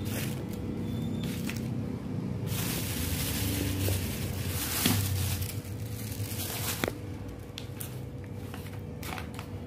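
Groceries being handled: rustling and crinkling, loudest for a few seconds in the middle, with a few light knocks as produce such as potatoes is set on a plastic tray, over a steady low hum.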